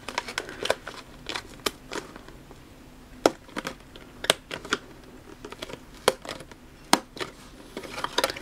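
Stiff cardboard of a booster box's display lid being bent and pushed into shape by hand: irregular sharp clicks and taps, with a few louder snaps spread through. The flap resists locking into place.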